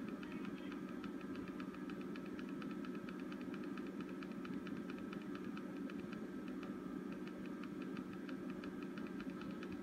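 Steady electrical hum with a fast, even ticking buzz running through it.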